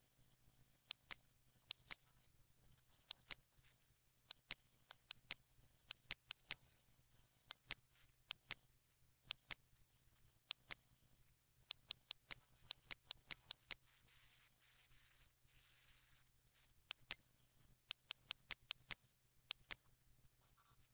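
Computer mouse buttons clicking: dozens of sharp, irregular clicks, many as quick double clicks, with a soft hiss of background noise for a couple of seconds past the middle.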